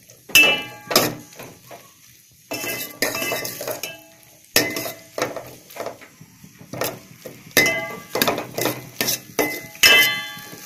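Steel spoon clinking and scraping against a stainless steel pot while stirring okra, onion and tomato as they sauté, in irregular strokes that ring briefly. There are quieter gaps about two and four seconds in.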